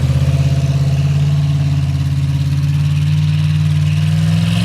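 A vehicle engine running steadily at a low, even pitch close by, rising briefly in pitch near the end.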